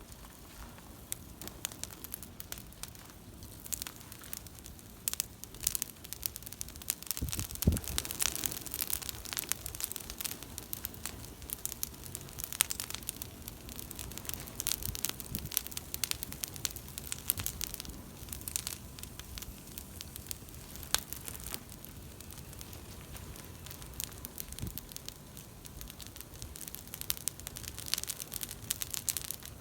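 Backyard bonfire crackling, with many sharp, irregular pops over a low hiss. The popping is busiest through the middle and picks up again near the end, and there is one dull thump about seven seconds in.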